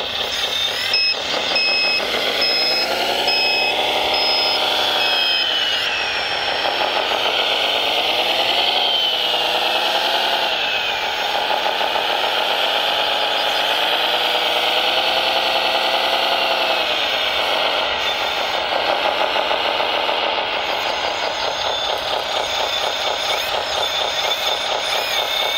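Engine sound of a radio-controlled Hitachi ZW370 wheel loader model, rising and falling in three long swells as it digs, lifts and tips its bucket. A reversing beeper sounds a string of short even beeps in the first few seconds.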